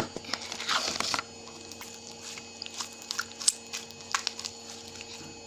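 Crunchy slime with sponge pieces in it being squeezed and kneaded by hand, giving crackles and small pops, densest about a second in and then scattered.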